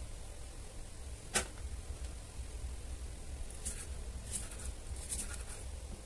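Kitchen knife slicing a tomato on a thick wooden chopping block: one sharp tap of the blade on the board about a second and a half in, then three short slicing sounds in the second half, over a low steady hum.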